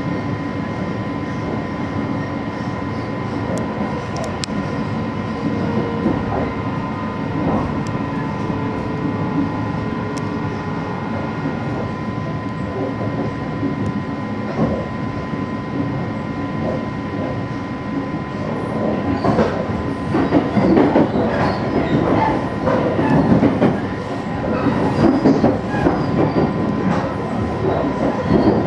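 285-series Sunrise Express electric sleeper train running, heard from inside the carriage: a steady rumble of wheels on rail with a constant high hum. From about two-thirds of the way through, a louder, dense clatter of wheels over rail joints takes over.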